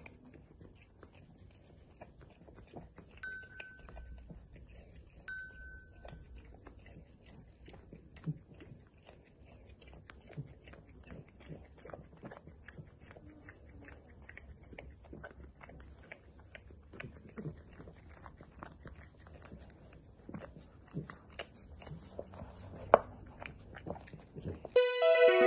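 A small dog licking and lapping whipped cream from a paper cup: quick, irregular wet licks and smacks, several a second. Two short high beeps sound a few seconds in, and music starts right at the end.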